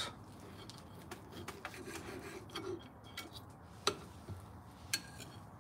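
Knife and fork cutting a grilled pork chop on a ceramic plate: faint scraping and light ticks, with two sharper clinks of metal on the plate about a second apart near the end.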